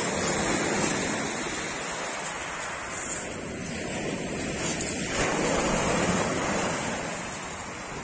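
Sea surf breaking and washing up a pebble beach, a steady rush of water that swells and eases as the waves come in.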